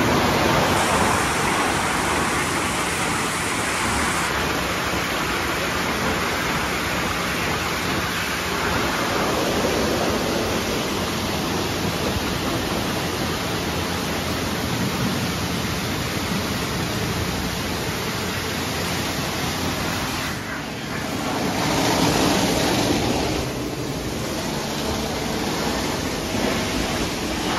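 Istobal M'Start rollover car wash scrubbing a car with its rotating brushes under water spray: a steady rush of spraying water and slapping brush bristles, with a brief dip about twenty seconds in.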